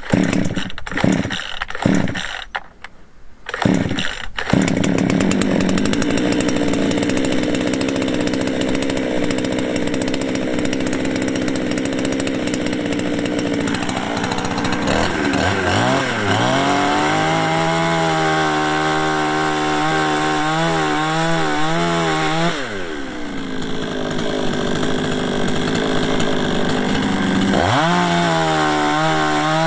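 Two-stroke petrol chainsaw, given a few short bursts as it is started, then run at full throttle cutting firewood logs. Its engine pitch dips and climbs again several times as the chain goes into and comes out of the wood.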